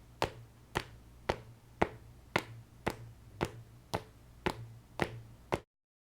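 Footsteps sound effect: about eleven evenly paced steps, roughly two a second, each a sharp tap, over a low steady hum. It cuts off abruptly into silence near the end.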